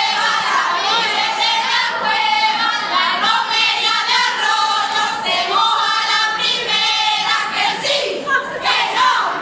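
Women's carnival group singing a song together, several female voices in chorus.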